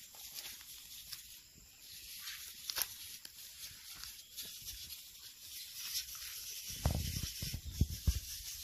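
Backpack sprayer nozzle hissing steadily as it sprays pepper plants, with a few dull thumps about seven seconds in.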